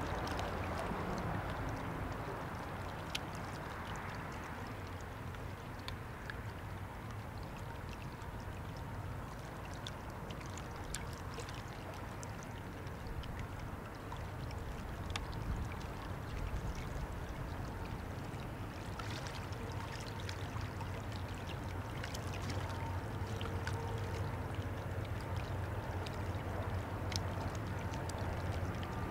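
River water lapping and splashing at the bank, over the low, steady engine drone of a passing motor cargo barge; the drone grows louder in the second half.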